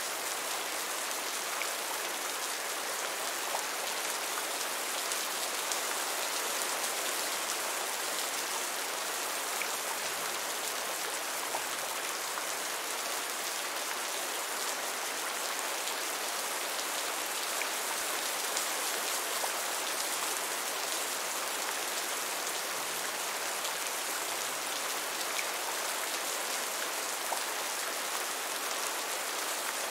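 Heavy rain falling steadily: a dense, even hiss with a few faint scattered drop ticks.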